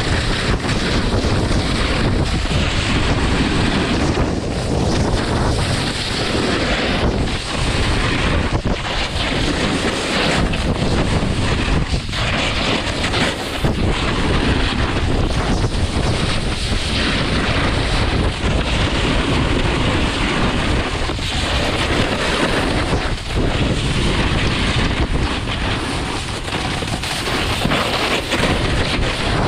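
Wind rushing over the camera microphone and a snowboard scraping over packed snow on a downhill run: a steady, loud rushing noise with small surges and dips.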